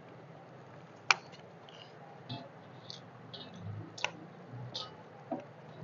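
Eating by hand from metal plates: scattered small clicks, smacks and chewing sounds, with two sharp clicks, about a second in and about four seconds in.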